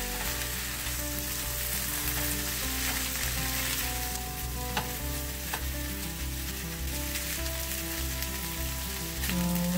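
Chorizo and potato hash sizzling in a nonstick frying pan while a silicone spatula stirs and turns it. A few light scrapes of the spatula against the pan come around the middle.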